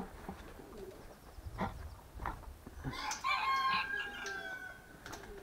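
A rooster crows once, about three seconds in: one cock-a-doodle-doo of about two seconds ending in a long held note. A few soft knocks, likely footsteps, come before it.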